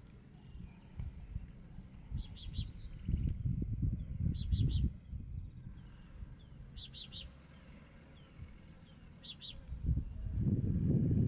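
Birds calling over and over: a short falling note about every half second to second, and a quick run of three notes every two seconds or so, over a steady high hiss. A low rumble swells about three to five seconds in and again near the end.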